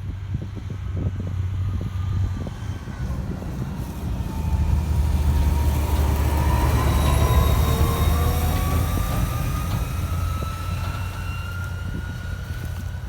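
Heavy harvest machinery running: a steady low diesel drone, with a whine that rises slowly in pitch from about four seconds in and is loudest around the middle.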